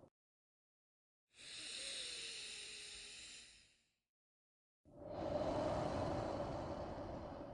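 Slow, paced human breathing for a relaxation exercise. After a silent pause, one long breath with a hissing sound lasts about two and a half seconds, then a brief pause and a longer, deeper and fuller breath that runs on past the end.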